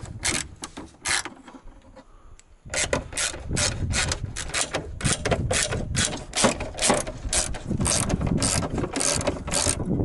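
Socket ratchet clicking as it works a bolt, in quick back-and-forth strokes of about three clicks a second. The clicking pauses for about a second and a half after the first second.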